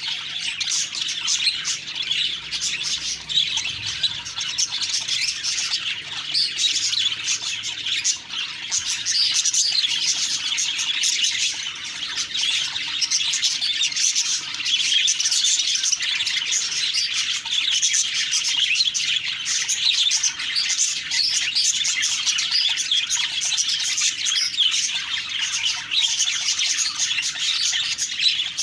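Budgerigars chirping and chattering continuously, with many short calls overlapping.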